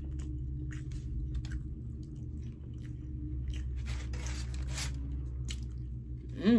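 A person chewing and smacking on a mouthful of rice and butter chicken, with many short wet mouth clicks, over a steady low hum.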